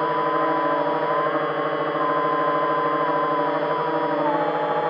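Electric motor and propeller of an RC flying wing running at steady cruise throttle, heard from the onboard camera: a steady whine whose pitch drifts slightly and dips about four seconds in.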